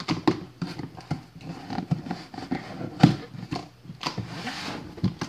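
A cardboard shipping box being handled and opened by hand: irregular knocks, taps and scrapes on the cardboard, with a longer scratchy scraping sound about four seconds in.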